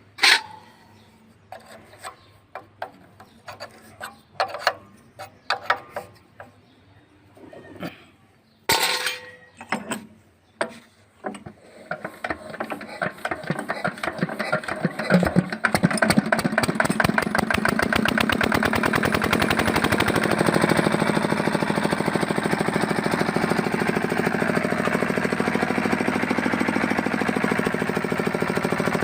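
Single-cylinder Fitter diesel engine being hand-cranked: scattered clanks and knocks, then about twelve seconds in it fires with slow beats that quicken and settle into a steady run. It starts readily with the air bled out of its fuel pump.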